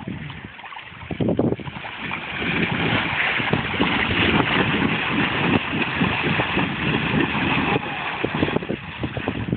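Water splashing and sloshing in a shallow pool as people tumble inside inflatable water-walking balls, with many short dull knocks. The noise builds about two seconds in and eases near the end.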